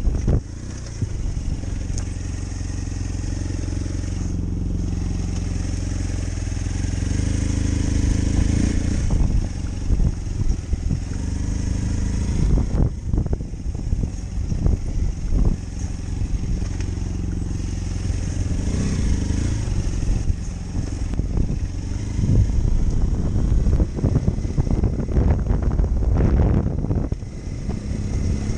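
Motorcycle engine running at changing revs while riding a rough dirt track, almost drowned by heavy wind noise on the microphone, with irregular knocks and clatter from the bumps.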